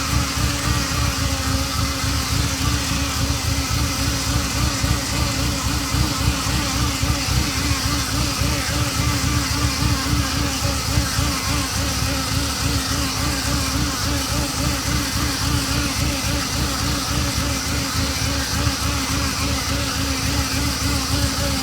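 Ferrari Mondial 3.2's V8 idling steadily with a constant buzz. The owner hears this buzz from about 15 seconds after a cold start, when oil pressure rises, and finds it loudest at the braided oil hoses.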